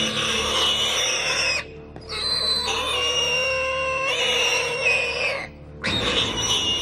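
Warthog giving loud, long distress squeals as it is caught by a leopard, the screams broken by two short pauses.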